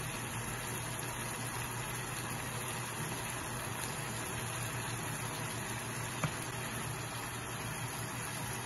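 Diced chicken simmering in oil and juices in a frying pan: a steady sizzling, bubbling hiss, with one light tap about six seconds in.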